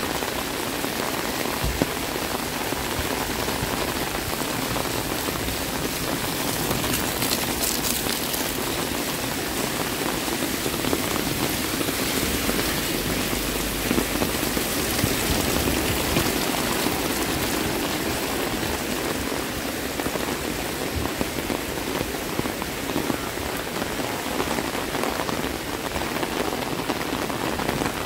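Heavy rain falling, a steady even hiss with a few small sharp ticks from nearby drops.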